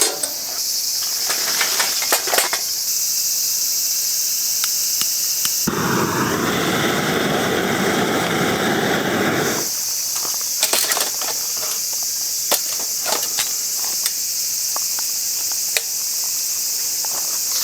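Crickets chirping steadily in a high, continuous band, with scattered light clicks and taps. About six seconds in, a loud even hiss takes over for about four seconds, then the crickets return.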